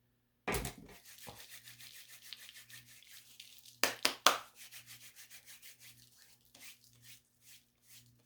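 Close-up rubbing and scratching on a hard surface. It opens with a loud scrape about half a second in, then a fast run of short strokes that fades, two sharp clicks near the middle, and sparser strokes toward the end.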